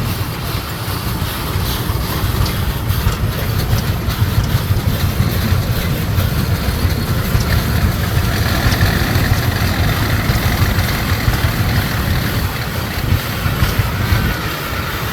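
Geiser steam traction engine running as it passes close by, a steady low rumble with rapid pulsing.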